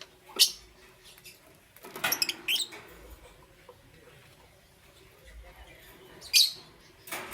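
Lovebirds giving short, sharp, shrill chirps: one soon after the start, a quick cluster about two seconds in, and two more near the end.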